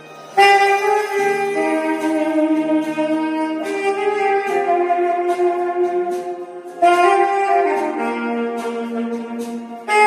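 Saxophone playing a slow melody of long held notes over a backing track, pausing for breath and starting a new phrase about seven seconds in.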